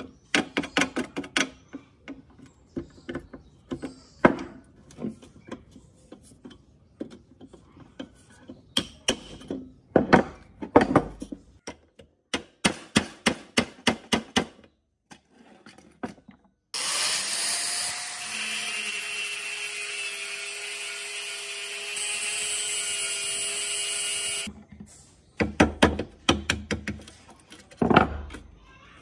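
Electric drill drilling out rivets in a rusty steel laminator base. It starts with a string of short bursts and knocks, then runs continuously for about eight seconds from the middle, its motor whine rising as it spins up and then holding steady. More short knocks follow near the end.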